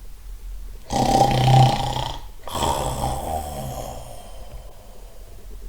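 A man imitating loud snoring: two long snores, the first with a low rattle about a second in, the second longer and slowly fading away.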